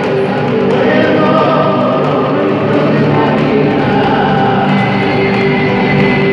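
Live folk band playing through a PA: voices singing over a strummed acoustic guitar and a violin.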